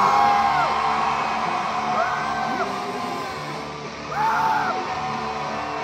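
Live hard rock band playing with drums, bass and guitars, and vocals over the top, heard in a large hall. Short high held notes rise and fall every second or two.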